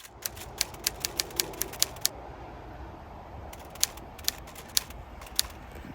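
A run of sharp, irregular key-like clicks in two bursts, the first about two seconds long and the second starting about halfway through, over a steady low background hum.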